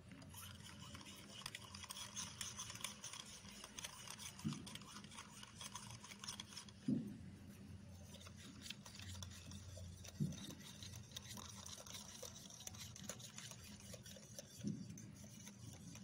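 A small metal spoon stirring sugar into milk in a miniature steel tumbler, scraping and clinking against the metal, with four soft low thumps spread through it.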